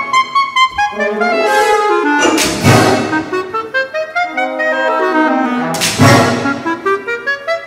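Solo clarinet playing with a full symphony orchestra in a contemporary clarinet concerto. Two loud full-orchestra hits land about two and a half and six seconds in, with runs of notes falling and rising between them.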